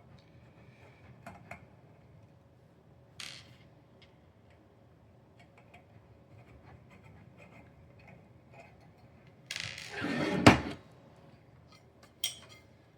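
Handling noise from the parts of a small acrylic-and-metal server rack being taken apart: a few light clicks, then a short scrape about nine and a half seconds in ending in a sharp knock as a part is set down, and another click near the end.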